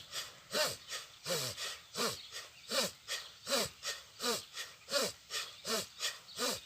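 Bhastrika pranayama (bellows breath): forceful, evenly paced breaths in and out through the nose, a strong one about every three-quarters of a second, in a steady unbroken rhythm.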